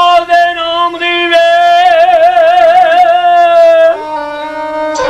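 Punjabi folk music: a bowed sarangi and a man's voice holding long notes, one note wavering in a slow vibrato near the middle before it breaks off about four seconds in.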